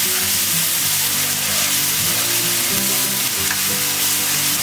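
Chopped onions sizzling steadily in hot oil in a nonstick karahi, stirred and scraped with a silicone spatula, the onions nearly fried. Soft background music plays underneath.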